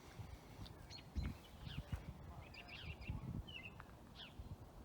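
Small songbirds chirping: many short, high chirps, each sweeping downward, scattered through the outdoor quiet, with a few dull low thumps, the strongest about a second in.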